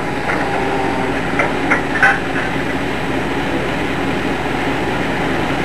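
Steady factory machinery noise, with a few light metallic clinks in the first two seconds, from the machine that feeds high-speed steel drill blanks into an induction heating coil.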